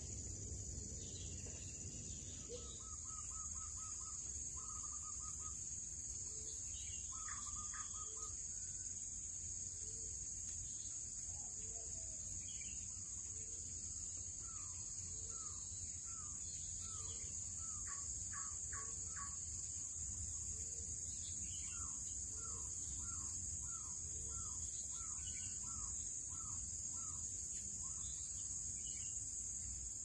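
Outdoor nature ambience: birds calling, with short trilled phrases in the first few seconds and then runs of quick repeated chirps from about halfway on. Soft low notes come about once a second, over a steady high-pitched insect drone.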